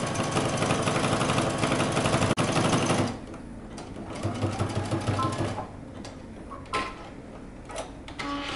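Home sewing machine running at speed, sewing a narrow zigzag stitch through several layers of knit fabric, then stopping abruptly about three seconds in. A few light clicks follow.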